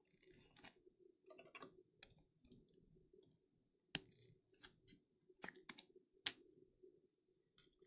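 Trading cards being slid into rigid plastic toploaders and set down: scattered light plastic clicks and taps with soft rustling between, the sharpest clicks in the second half.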